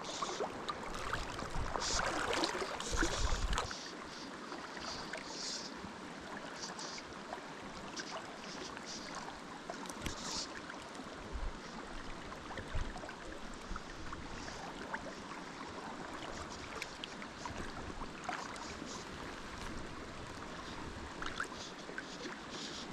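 Steady rush of a flowing river, a little louder for the first few seconds, with a few faint small clicks.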